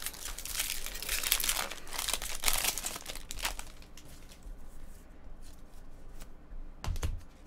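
Wrapper of a Bowman Draft jumbo pack of baseball cards crinkling and tearing as the pack is opened, for about the first three and a half seconds. Then comes a quieter stretch of cards being slid and flipped through, with a few light clicks near the end.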